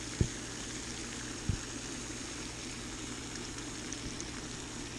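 Steady outdoor background hiss with two soft low thumps, about a quarter second and a second and a half in.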